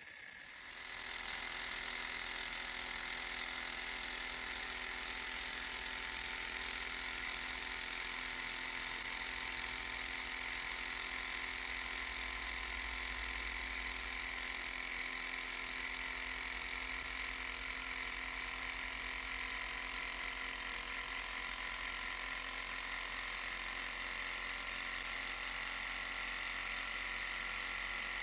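Walking-beam alpha-type Stirling engine running at a steady speed, its beam linkage, pistons and flywheel making a steady mechanical running noise. The sound comes up about a second in and then holds even throughout.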